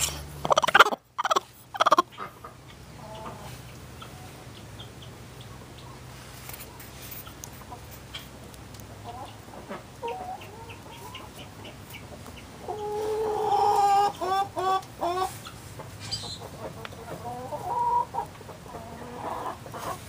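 Broody hen growling and clucking in a series of low throaty calls, some breaking into rapid pulses, the loudest a pulsing growl about two-thirds of the way through. It is a broody hen's warning, telling an intruding hand to back off her nest.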